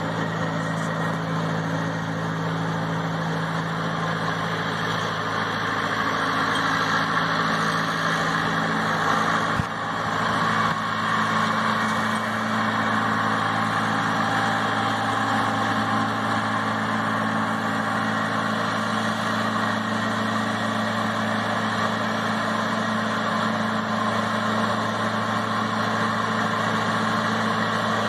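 Tractor engine running steadily as it tows an orchard sprayer, with a steady rushing noise over the engine note. The engine's tone shifts to a different pitch about ten seconds in.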